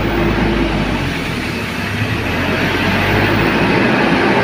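Heavy truck's diesel engine pulling slowly up a steep mountain grade, a steady low rumble mixed with road noise, heard from the cab.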